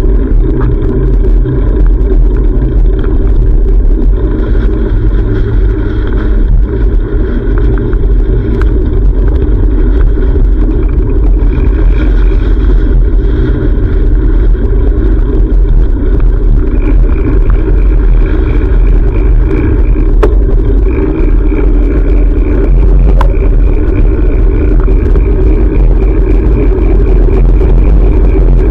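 Heavy, steady wind rumble on an action camera's microphone while cycling, with road noise underneath.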